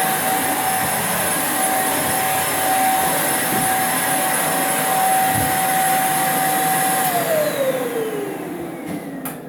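Vacuum cleaner running with a steady whine, then switched off about seven seconds in, its motor winding down with a falling whine.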